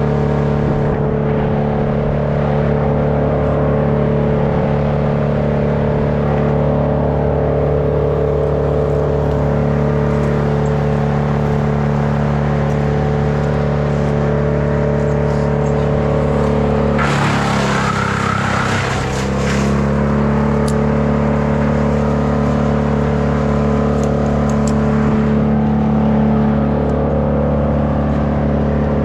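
An engine running steadily. About two-thirds of the way in it dips under load for a couple of seconds, with a burst of harsh, hissing noise, then recovers.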